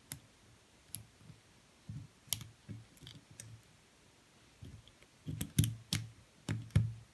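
Lock pick tapping and clicking against the pin stacks inside a Kasp padlock during single-pin picking: a dozen or so sharp, irregular clicks, coming more thickly in the second half, as the pins are probed for feedback.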